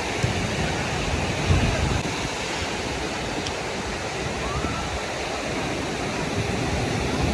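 Beach ambience: a steady rush of sea surf and wind, with faint voices in the background.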